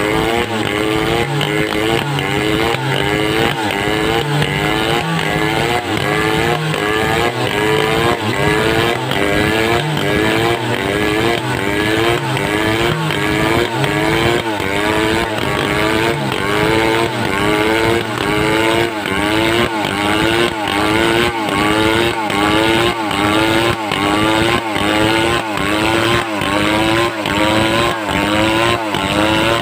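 Home-built two-stroke chainsaw running under load, ripping timber lengthwise into lumber. Its engine pitch swings up and down in a steady rhythm, a little more than once a second.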